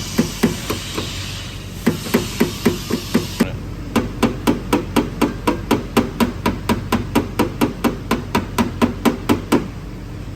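Hammer tapping on the car's sheet-metal body panel, a fast even run of sharp knocks at about four a second with a short pause about a second in, working the dent area level. A high hiss underneath cuts off about a third of the way in.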